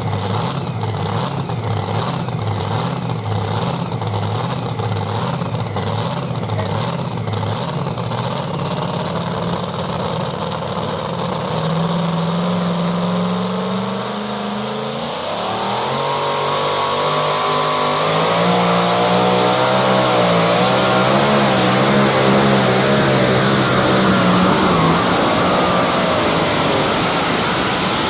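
Supercharged engine of a modified pulling tractor idling with a lumpy, rhythmic lope, then, about halfway through, revving up and climbing steeply in pitch as it launches on the pull. It then holds a high, wavering note at full power until near the end.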